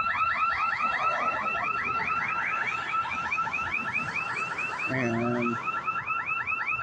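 Building security alarm sounding a fast, repeating rising yelp, about six sweeps a second, without a break.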